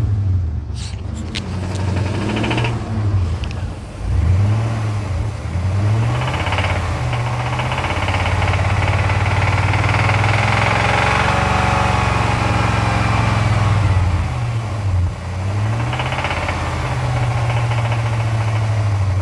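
Jeep Grand Cherokee WJ's 4.7-litre V8 revved up and down several times, held high for several seconds in the middle, heard from inside the cabin. It has an engine knock that shows when revving, which the owner thinks may mean pulling the engine.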